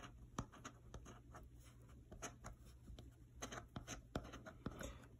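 A coin scraping the latex coating off a scratch-off lottery ticket: a run of short, faint scratching strokes.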